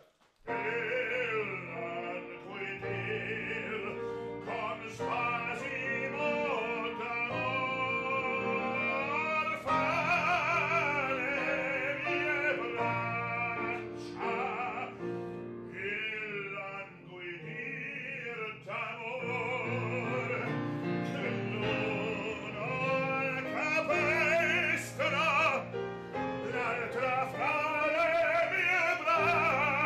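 Male bass-baritone opera singer singing an aria in full operatic style with a wide vibrato, accompanied on a grand piano.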